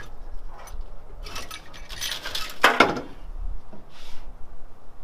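Metal engine parts clinking and scraping as the cylinder head comes off an LS1 V8 block, with one louder ringing metal clank a little under three seconds in.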